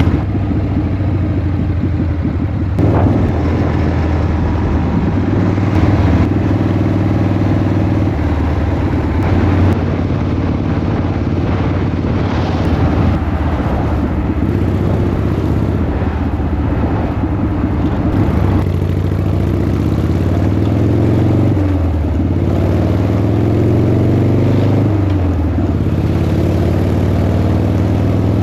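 Harley-Davidson Shovelhead V-twin motorcycle engine running under way. Its pitch climbs several times in the second half as it accelerates up through the gears.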